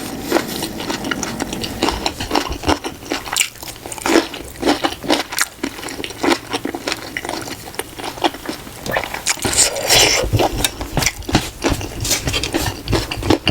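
Close-miked eating: irregular chewing and biting, with many small wet clicks and smacks, and a longer noisy stretch about ten seconds in.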